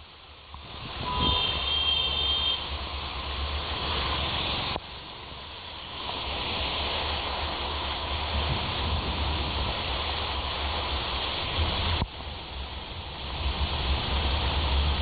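Heavy rain pouring onto a flooded road as a steady hiss, with vehicles' tyres swishing through the standing water. A brief high tone sounds about a second in.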